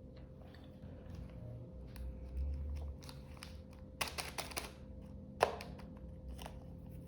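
Wood fire crackling in a fireplace: scattered small pops and snaps, a quick cluster of them about four seconds in, and one sharp louder pop about five and a half seconds in.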